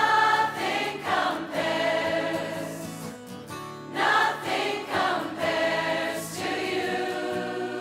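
A large crowd singing together as an amateur choir, holding long notes in several phrases, each starting afresh every couple of seconds.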